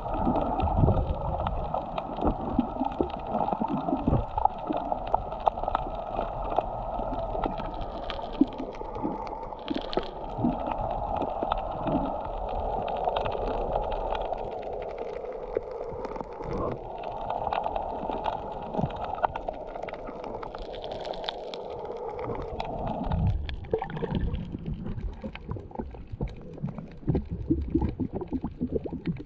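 Underwater sound heard through a camera held below the surface: a steady muffled water hiss with scattered clicks and irregular low thumps. The hiss fades about three-quarters of the way through.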